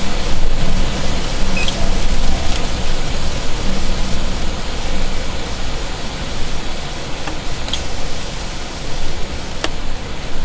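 Loud, continuous rushing noise that swells and dips, heaviest in the low rumble, with a few faint sharp ticks scattered through it.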